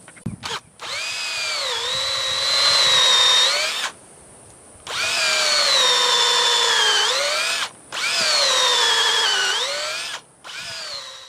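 Cordless drill boring pilot holes for gate hinge screws into a wooden 4x4 post. It makes three long runs and a short one near the end. The motor's whine drops in pitch as the bit bites into the wood and rises again as it frees up.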